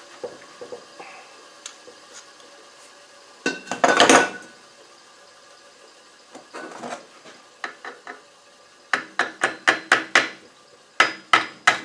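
Hammer tapping a steel punch to drive a pin into the hole of an LT77S gearbox shaft: a few light metallic clicks, a loud clatter of metal about four seconds in, then two quick runs of ringing strikes at about four a second near the end.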